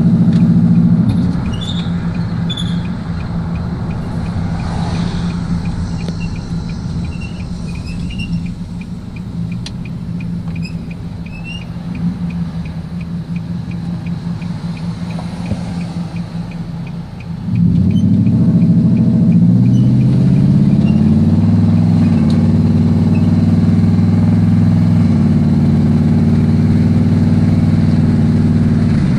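Nissan Titan pickup's engine running, with a faint short high squeak repeating several times a second through the first part. A bit past halfway the engine speeds up and holds at the higher speed.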